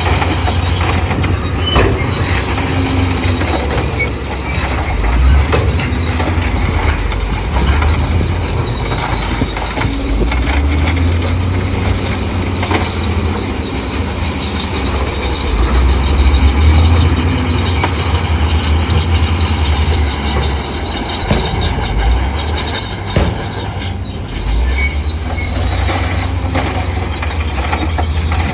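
Crawler bulldozer at work: its diesel engine runs with a deep rumble that swells and eases with load, over squealing and clanking from its steel tracks.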